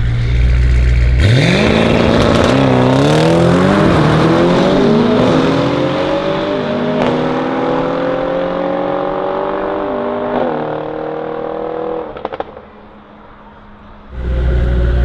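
Tuned twin-turbo V8 of a Mercedes-AMG E63S with an Akrapovic exhaust rumbling at the line, then launching about a second in: a rising engine note that drops in pitch at each upshift, about five times, fading as the car pulls away down the drag strip. A loud low engine rumble cuts back in near the end.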